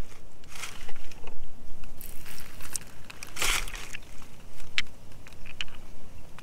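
Two wet, rough red crystal pieces handled in a hand: fingers rubbing and shifting them, giving short scraping rustles with a louder scrape about halfway, and a few sharp clicks as the stones knock together.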